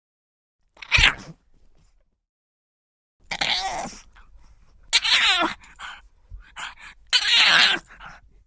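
Pug dog snorting and sneezing in four separate bursts: a short sharp one about a second in, then three longer ones, the third with a falling, cry-like pitch.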